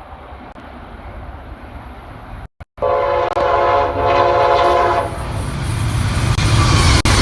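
A train approaching with a rising rumble; the sound cuts out for a moment, then the GE P42DC locomotive's Nathan K5LA air horn sounds one chord blast of about two seconds. Loud rumble and rail noise follow as the locomotive passes close by.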